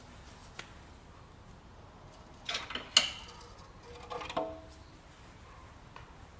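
Stamped sheet-steel engine oil pan being pulled off the engine block and lowered by hand: metal scraping and clanking, with one sharp ringing clank about three seconds in and a second ringing clatter about a second later.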